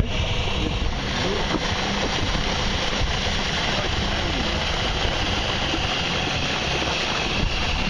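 A motor running steadily, with indistinct voices in the background.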